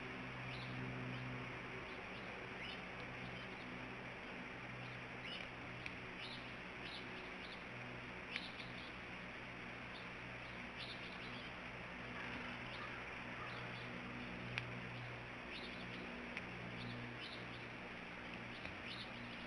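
Faint outdoor wildlife-cam ambience: a steady low hum and hiss, with scattered short, high bird chirps and two sharp clicks, one a little before the middle and one about three-quarters of the way through.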